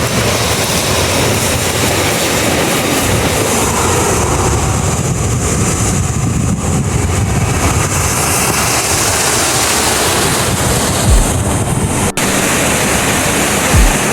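Steady loud roar of rushing water from a mountain stream cascade. Two brief low thumps come near the end.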